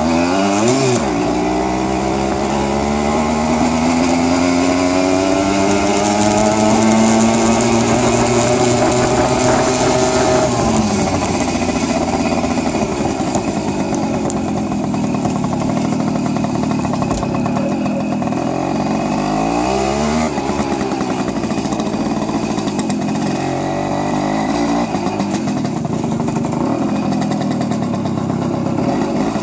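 Jawa Mustang moped's 50 cc two-stroke single-cylinder engine under way. Its pitch climbs steadily for about ten seconds as it accelerates, then drops back about eleven seconds in. It dips and climbs again around twenty seconds in.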